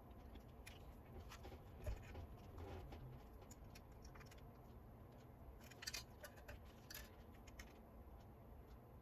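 Faint, scattered clicks and taps of small parts and tools being handled during repair work, with a louder knock about two seconds in and a short cluster of clicks around six seconds.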